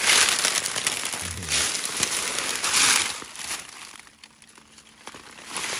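Dry fallen leaves crunching and rustling underfoot, in several loud surges, then dropping away for about a second before picking up again near the end.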